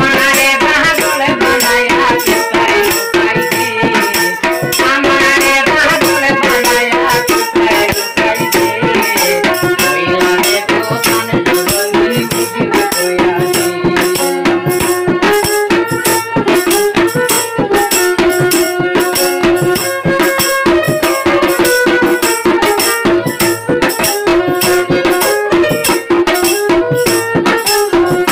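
Instrumental baul folk music: a melody over a held note, driven by fast, steady percussion.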